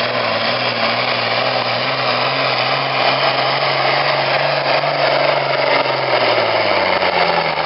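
Pro farm pulling tractor's diesel engine running loud and steady under load, its pitch falling near the end.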